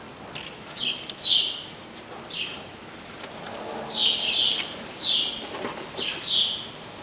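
A small bird chirping over and over: short, high chirps that each drop in pitch, about one or two a second.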